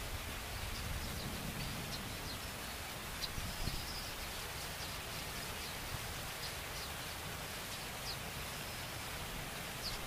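Baya weavers giving short, high chirps every second or so, with a couple of brief thin wheezy notes, over a steady outdoor hiss and low rumble.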